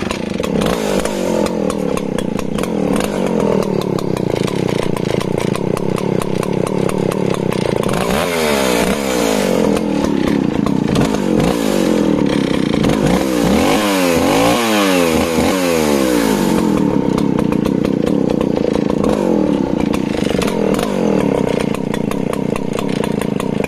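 Stihl 041AV 61cc two-stroke chainsaw started with a pull of the cord and running at a lazy thumping idle, the distinctive idle of its long-stroke engine. About a third of the way in it is revved up and down several times for some eight seconds, then settles back to idle.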